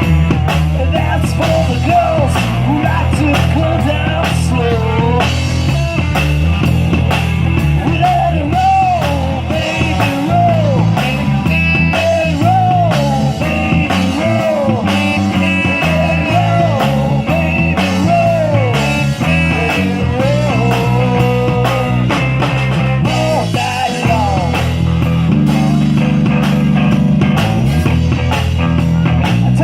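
Live band playing a blues-rock number: drum kit keeping a steady beat, a walking bass line, and a lead melody of bending, sliding notes over the top.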